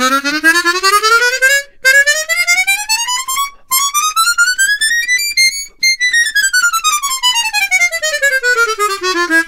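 Hohner ACE 48 12-hole chromatic harmonica played loudly as a volume test, in fast scale runs that climb about three octaves to its top notes and then run back down. The runs break off briefly a few times on the way up.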